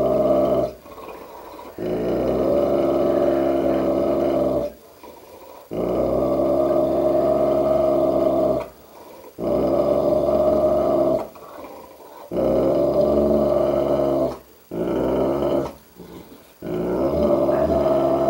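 A Dogue de Bordeaux growling at its own reflection in a mirror: a series of long, deep, rumbling growls, each a few seconds long, broken by short pauses for breath.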